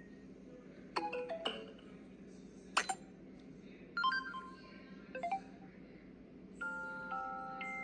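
Samsung Galaxy A42 5G playing its preloaded alert tones: a series of short electronic chimes and plinks about a second apart, then a longer held chime near the end.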